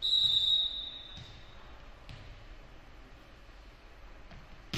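Referee's whistle blown once at the start, a short high blast under a second long. It is followed by a few soft thuds of a volleyball bounced on the gym floor, about one a second.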